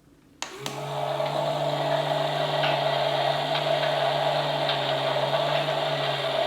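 Battery-powered toy slime washing machine switched on with a click about half a second in, then its small electric motor running steadily with a constant hum and whine.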